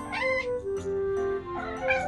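Siberian cat meowing twice, a short rising call near the start and a wavering one near the end, over background music.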